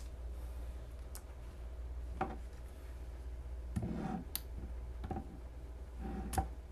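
Sharp metallic clicks and taps from handling a Damascus steel folding knife, about six of them at irregular spacing, over a steady low hum.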